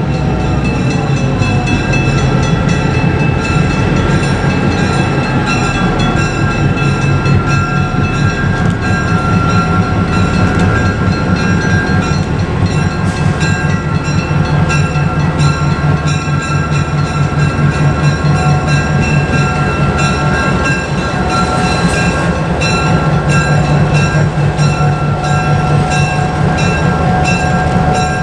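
Train at close range: a locomotive's engine drone runs steadily, with a few steady high whining tones over it. A falling tone is heard in the first couple of seconds.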